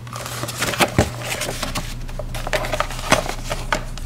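Handling noise from unpacking a Play-Doh playset: a paper map rustling and light, irregular clicks and taps of plastic cans and toy pieces, over a steady low hum.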